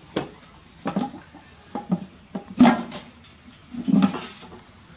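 A series of sharp knocks and clatters, five or six of them at uneven intervals, the loudest about two and a half seconds in and another strong one near four seconds, like hard objects or dishes being handled and set down.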